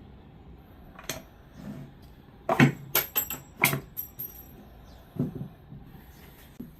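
Homemade wooden dog treat launcher being worked: a scattered series of sharp clicks and knocks as the sliding plate moves and the trip arm snaps, with a quick cluster of several about halfway through.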